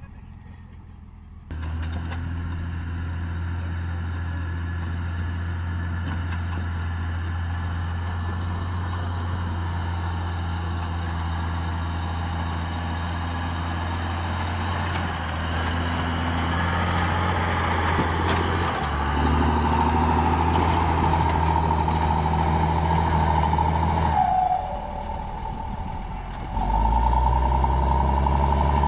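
LiuGong motor grader's diesel engine running steadily under load as the blade spreads loose soil. Its note shifts several times, dipping for a couple of seconds and then coming back louder near the end.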